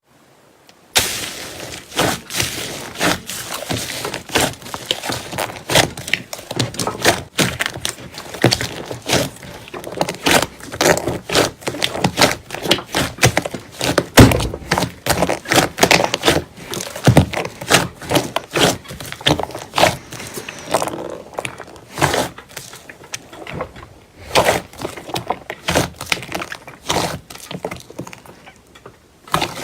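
Slime being squeezed and poked by hand, a dense, irregular run of crackling clicks and pops, with one heavier thud about halfway through.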